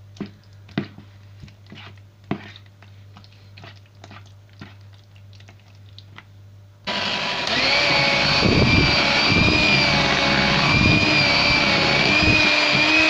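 A metal spoon clicking and tapping against a plastic bowl while stirring thick mascarpone cream, then about seven seconds in an electric hand mixer switches on suddenly and runs loud and steady, with a high whine that wavers slightly as the beaters work through the cream.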